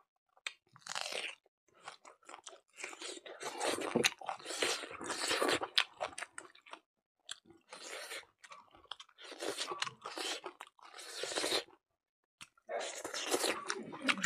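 A person chewing a mouthful of buffalo innards curry with rice, crunching in repeated bursts with short pauses between them.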